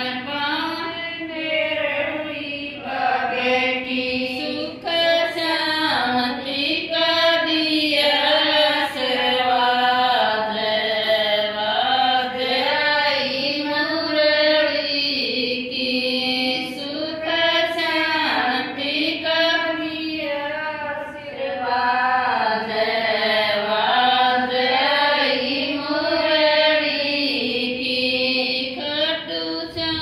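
Group of women singing a Hindi devotional Shyam bhajan together in a continuous, flowing melody.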